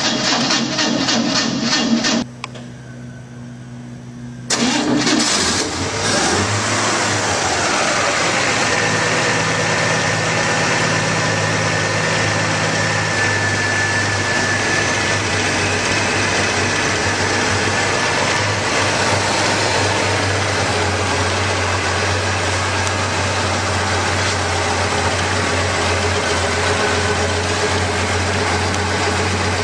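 Classic pickup's inline-six engine running under the open hood. The sound drops away for about two seconds near the start, then the engine settles into a steady idle with a faint high whine for a while.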